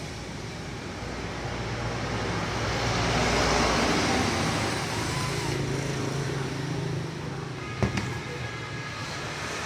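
Road traffic noise: a motor vehicle passing, its sound swelling to a peak a few seconds in and then easing, with a sharp click near the end.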